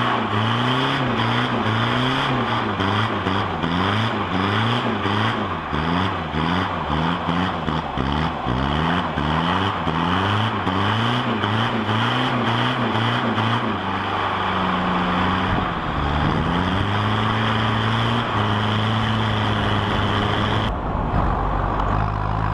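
Diesel ute engine revved in quick repeated blips, pitch rising and falling about once a second, then running steadier about two-thirds of the way through, sounding out through a side-exit exhaust.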